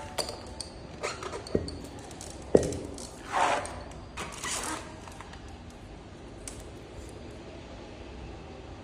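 Workshop handling noises from parts and tools: a few sharp clicks and knocks, the loudest about two and a half seconds in, and two short scrapes, then only low room noise.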